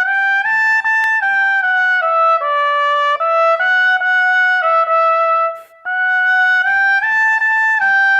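Trumpet playing a slow melody of held notes that step up and down, with a short break a little past halfway before the tune resumes.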